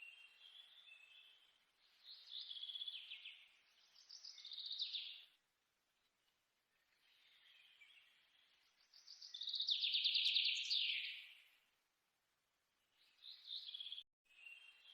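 Songbirds chirping in quick, twittering phrases a few seconds long, with silent gaps between them; the loudest phrase comes about ten seconds in.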